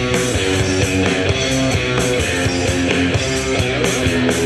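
Live rock band playing an instrumental passage: electric guitar with bass and drums, at a steady beat.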